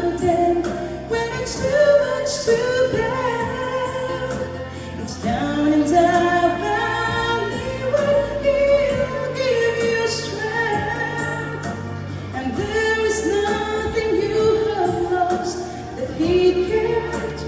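A woman singing a slow gospel worship song into a handheld microphone, with instrumental accompaniment.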